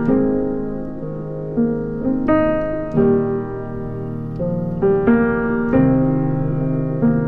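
Background music: slow, gentle piano chords.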